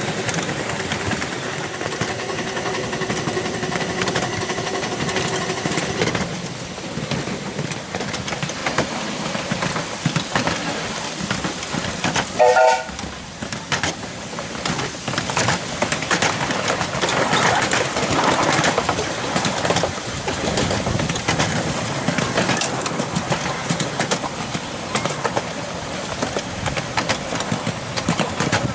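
Miniature 7¼-inch gauge Fairlie's Patent steam locomotive and its carriages running steadily along the track, with wheels clicking over the rail joints. A steady tone sounds at the start and stops about six seconds in, and a brief loud sound comes about twelve seconds in.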